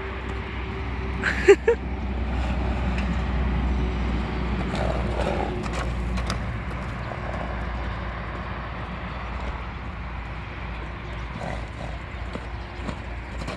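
A horse snoring, with slow swelling breaths. A pair of sharp knocks comes about a second and a half in.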